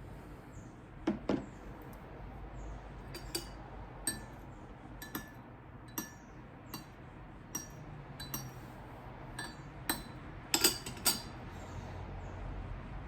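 Dishes and glassware clinking: a series of light, sharp knocks at irregular intervals, loudest about a second in and again in a quick cluster between ten and eleven seconds in.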